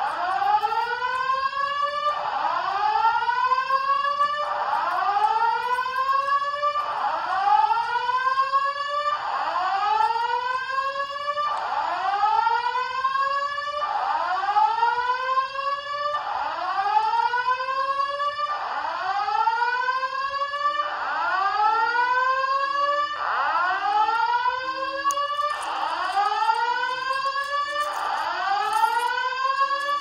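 Simplex 4100U voice-evacuation fire alarm speakers sounding a whoop tone: a rising sweep that repeats about once every two seconds.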